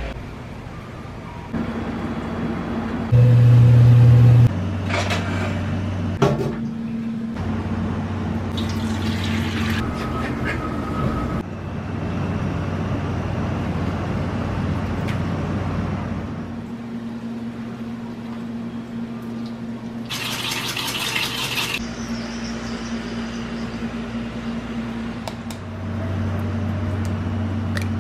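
Kitchen background: steady low hum of fans and cooking equipment that changes abruptly every few seconds, with a few light clinks, a loud hum for a second or so early on, and a short hissing burst about two-thirds through.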